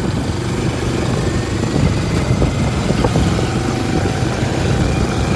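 A motor vehicle's engine running steadily under heavy wind noise on the microphone.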